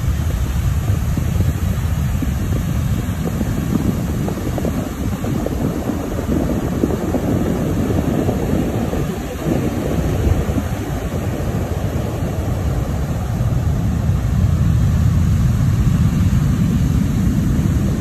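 Heavy post-typhoon surf breaking and washing up a stony beach, with strong wind buffeting the microphone into a deep rumble. The wash swells about six seconds in and again near the end.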